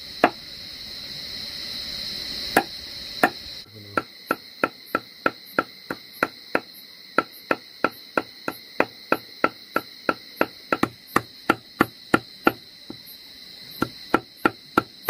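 A steady series of sharp knocks, about three a second, starting about four seconds in and thinning out near the end. Insects drone steadily in the first few seconds.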